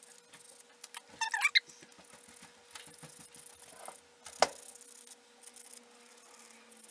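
Small file rasping against the inside of a Byte clear plastic aligner, smoothing down its sharp edges, in faint scratchy strokes with light clicks. A brief wavering squeak comes about a second in, and a single sharp click about four and a half seconds in.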